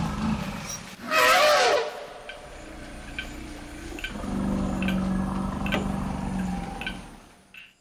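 An elephant gives one loud, high trumpeting call about a second in, its pitch bending. A lower steady drone follows from about four seconds in, over faint regular ticks, and everything fades out near the end.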